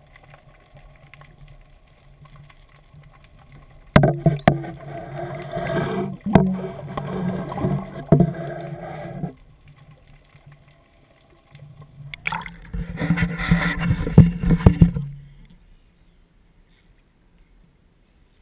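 Water churning and splashing against an underwater action-camera housing in two loud spells, about four and twelve seconds in, full of knocks and clunks of handling as the camera is brought up through the surface.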